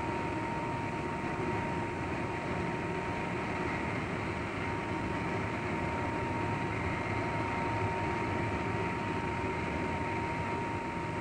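Steady jet aircraft noise on an airport apron: an even rush with a constant high whine running through it.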